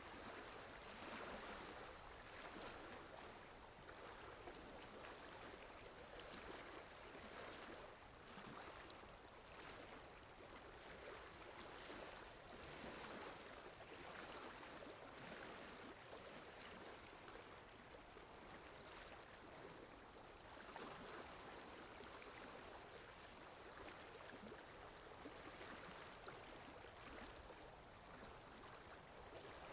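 Steady rain falling: a soft, even hiss with gentle swells in loudness every second or two.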